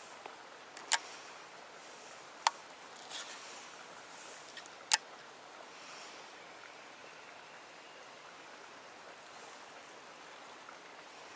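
Steady rush of a flowing stream, with three sharp clicks standing out about one, two and a half and five seconds in.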